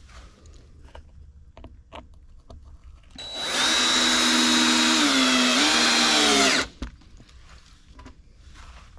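Power drill driving a screw through a wooden cleat into the side of a wooden five-frame nuc box: the motor runs for about three and a half seconds, its pitch dipping under load near the end, then cuts off suddenly. A few light knocks of wood being handled come before it.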